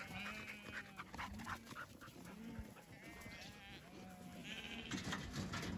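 A flock of sheep bleating faintly, many short calls overlapping one another.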